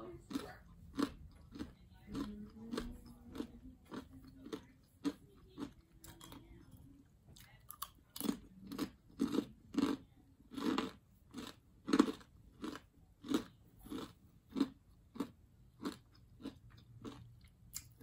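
A person chewing crunchy food close to the microphone: crisp crunches from the mouth, coming about one and a half to two times a second and most regular in the second half.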